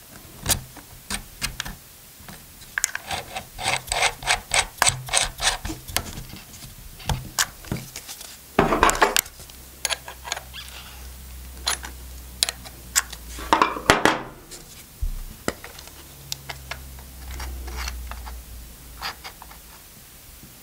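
Depth guard being slid and clicked into place on the head of a Parkside PRSA 20-Li A1 cordless drywall cutter: quick runs of small clicks and ticks with scraping rubs, the loudest scrapes about nine and fourteen seconds in.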